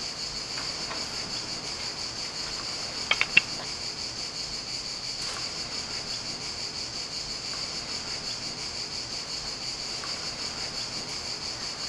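A steady, high-pitched insect chorus chirring without a break, with a couple of brief clicks about three seconds in.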